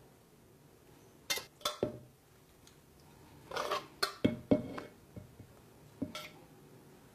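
Metal spatula scraping and clinking against a stainless steel pot while serving braised duck onto a plate: a few short clinks and scrapes with pauses between, the longest scrape a little past halfway.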